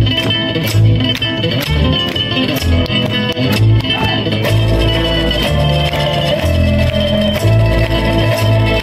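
Live band playing an instrumental passage of a song: guitar with a moving bass line and a steady beat, no singing.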